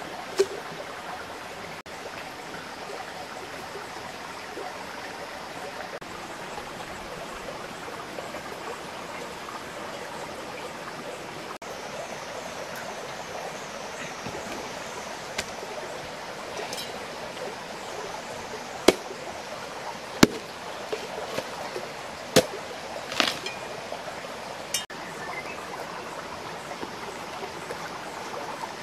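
Steady rush of a shallow, rocky stream, with a scattering of sharp knocks and clicks, most of them bunched together in the second half.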